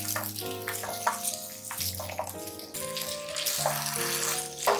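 Instrumental background music over cubed potatoes sizzling in oil in a nonstick frying pan, with a spatula scraping the pan as they are stirred; a sharper scrape comes near the end.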